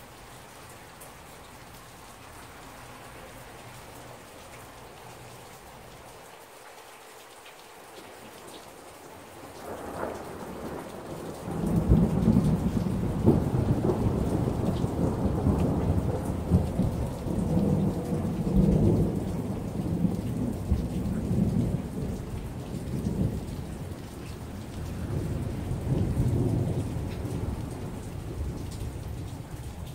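Heavy rain falling steadily. About ten seconds in, a long peal of thunder builds and rumbles loudly in rolling swells for some fifteen seconds, then fades, over the rain.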